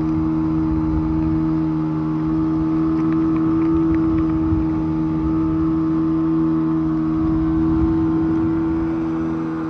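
Boat motor running at a steady speed, a constant-pitched hum with an uneven low rumble underneath.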